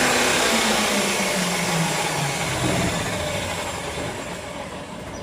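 Abrasive cut-off wheel on an electric power tool cutting steel stock, its hiss and whine fading steadily as the cut ends and the motor winds down.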